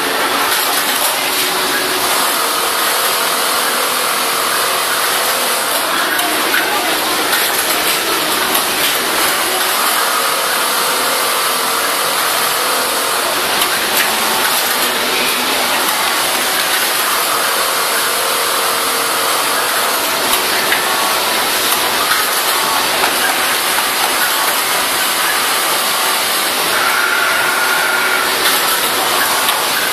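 Steady din of a garment factory floor with many industrial sewing machines running, with faint humming tones that come and go every several seconds.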